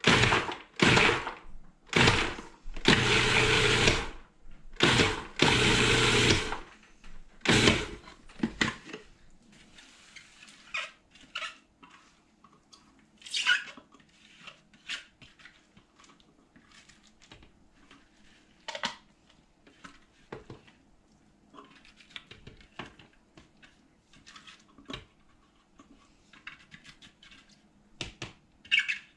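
Electric food processor pulsed on and off, chopping onion and garlic: several short bursts and two longer runs of about a second each. About nine seconds in it stops, and light clicks and scrapes follow as the plastic bowl is handled and the chopped onion is scraped out with a silicone spatula.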